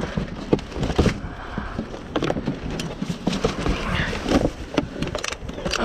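Irregular knocks, clatter and rustling of junk being handled and shifted while rummaging through a dumpster.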